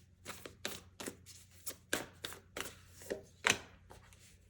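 Tarot cards being shuffled and handled: a run of short, sharp card slaps and flicks at an uneven pace, the loudest about three and a half seconds in.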